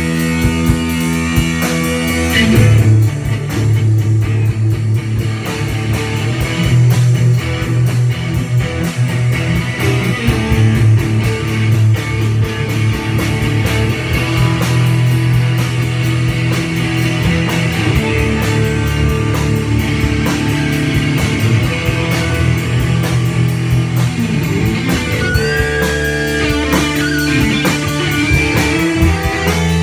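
Rock band jamming live: electric guitars playing over a drum kit, with sustained low notes and steady drumming.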